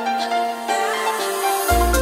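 Background music: a melody of held electronic notes, with a deep bass coming in near the end.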